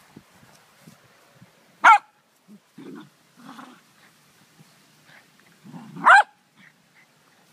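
A Dogo Argentino puppy and a poodle play-fighting: two sharp, high-pitched barks about four seconds apart, with low growls between and just before the second bark.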